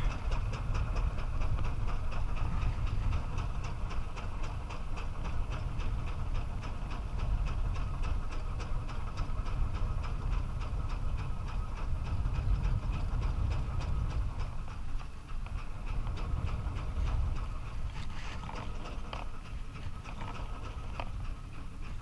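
Small fishing boat's engine running steadily at slow trolling speed: a constant low rumble with a fast, even ticking over it.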